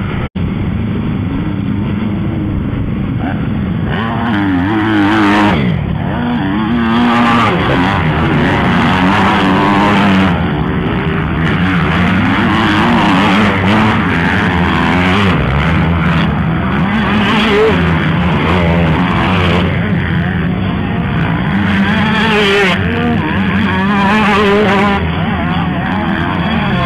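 Several MX2-class motocross bikes racing past one after another, their engines revving up and down and overlapping.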